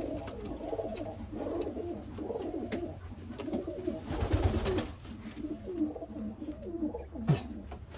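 Many domestic pigeons cooing over one another, a continuous overlapping chorus of low, wavering coos, with a flutter of wings about four seconds in.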